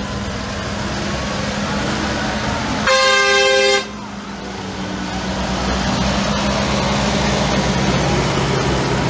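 Diesel tractor engines running as a convoy of tractors drives slowly past. About three seconds in, a vehicle horn sounds one blast about a second long. The engine sound grows louder in the second half as the next tractors come by.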